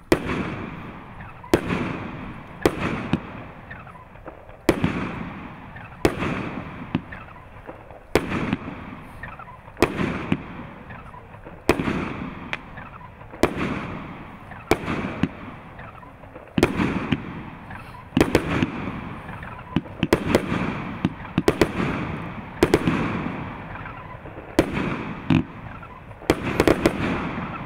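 A 25-shot, 30 mm single-fuse firework cake firing its shots one after another, about one a second. Each shot is a sharp bang followed by a rolling echo.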